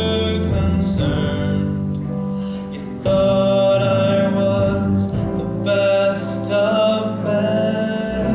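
A man singing a slow ballad with instrumental accompaniment, holding long notes.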